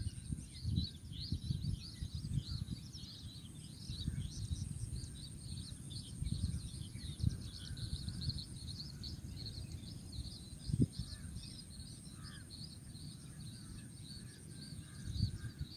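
Wind gusting on the microphone in open grassland, over a steady chorus of high, rapid chirping and a thin, constant high whine. A brief bump about eleven seconds in.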